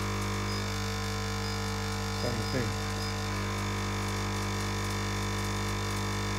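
Electromagnetic vibratory feeders of an IMA Swiftpack Swiftvision SV2 tablet counting machine running with a steady electric hum.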